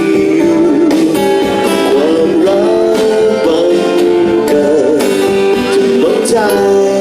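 Live band playing an instrumental passage of a pop ballad: a lead melody line that bends and wavers in pitch over held chords, with a steady drum beat.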